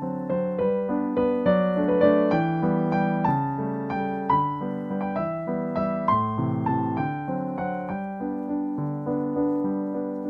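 Background piano music: a gentle, continuous run of notes with chords underneath.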